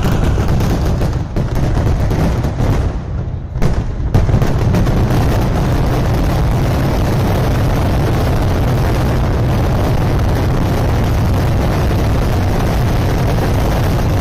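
Fireworks barrage: a rapid string of loud bangs for the first few seconds, then about four seconds in the blasts run together into one continuous loud rumble.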